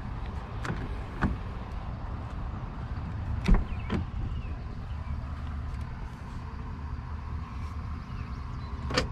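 Pickup truck door handling: a few light clicks, then a louder latch knock about three and a half seconds in, with another right after it, as the front door is opened, and one more sharp click near the end. A steady low rumble runs underneath.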